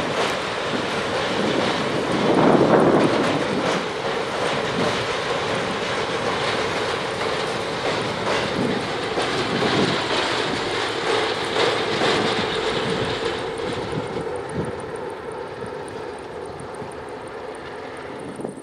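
Container freight train hauled by a diesel-electric locomotive crossing a steel girder bridge: steady rumble of the engine and wheels. It fades over the last few seconds as the train moves away.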